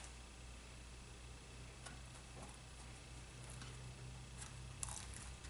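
Faint sounds of eating a pepperoni pizza slice: a bite and chewing, with a few soft clicks, the sharpest near the end, over a steady low hum.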